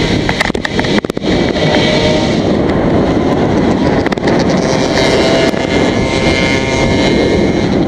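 Wind buffeting the microphone of a handlebar camera on a moving bicycle, a steady rushing noise with a brief break and a few clicks about a second in.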